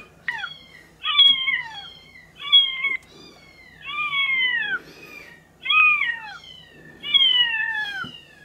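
A kitten meowing repeatedly: five loud calls, each sliding down in pitch, about one every second and a half.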